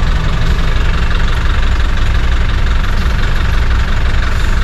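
Diesel engine of a Volare A8 motorhome idling steadily while stopped, heard from inside the cab.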